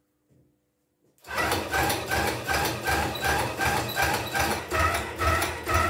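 A homemade large solenoid engine, an electromagnet coil pulling a steel-rod piston that turns a flywheel, starting about a second in when connected to its 20 V battery. It then runs steadily, with a knock and a brief buzz on every stroke, about two and a half strokes a second.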